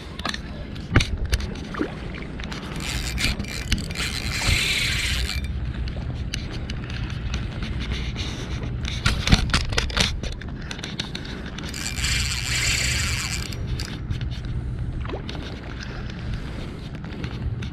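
Spinning reel (Tica Flash Cast 6000) working during the fight with a hooked barramundi: two bursts of reel noise about two seconds long, one about three seconds in and one about twelve seconds in, with scattered knocks and clicks over a low steady hum.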